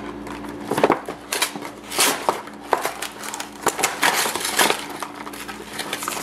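Kitchen handling noises: plastic packaging crinkling and rustling with light clicks and knocks of dishes or trays, over a faint steady appliance hum.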